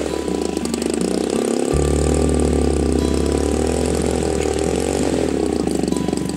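Engine of a large-scale radio-controlled P-47 Thunderbolt model running at low throttle as it taxis, its pitch drifting slightly up and down.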